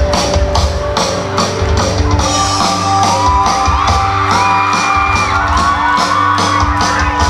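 Live pop-rock band playing through a large PA: a steady drum beat under electric guitars, with shouts from the crowd.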